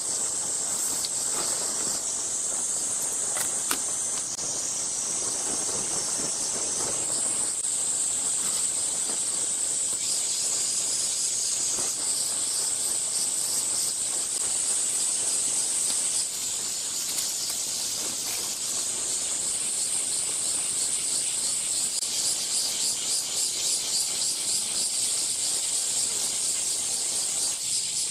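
A loud, steady, shrill chorus of cicadas in the summer trees, turning into a fast pulsing near the end. Beneath it, the nylon of a tent rustles as it is folded and packed.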